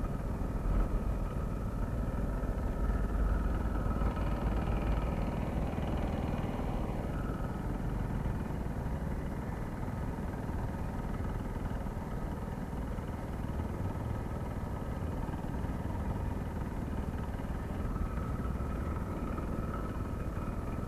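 City street traffic heard from a moving bicycle: cars and a motorcycle running close by, over a steady low rumble of wind and road noise.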